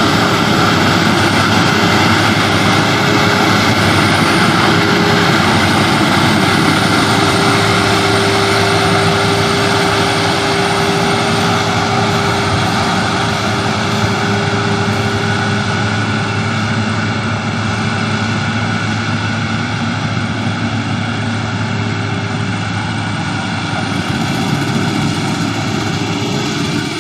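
Maxxi Bimo combine harvester running steadily, its engine and machinery giving a loud, even drone with a constant hum.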